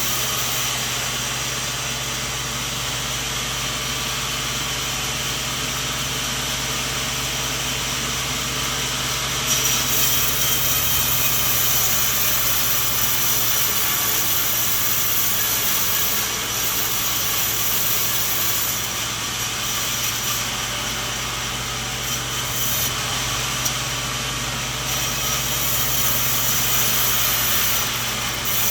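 Sawmill running steadily, its blade sawing through a coconut trunk. It is a constant low hum with a hiss over it, which grows louder and brighter about a third of the way in.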